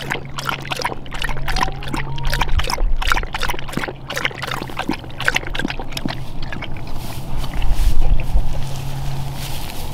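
Livestock guardian dog lapping water from a rubber water pan: rapid wet laps and splashes. The lapping stops about seven seconds in, leaving softer noise and a low thump around eight seconds.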